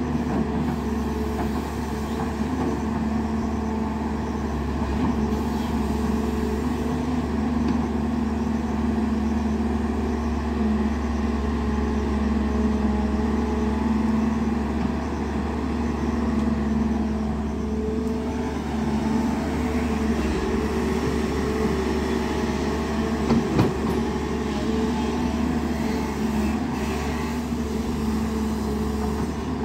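JCB 205 NXT tracked excavator's diesel engine running steadily as the arm digs soil. Two brief knocks come about two-thirds of the way through.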